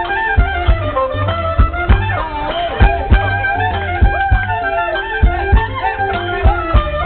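Live Thai traditional music: a reedy wind melody bending in pitch over a steady drum beat of about three strokes a second.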